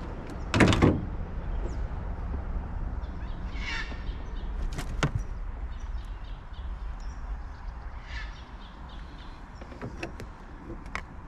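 Knocks and scraping in a small boat as a Murray cod is handled in a landing net, with one loud thump about a second in and a sharp click midway, over a steady low rumble.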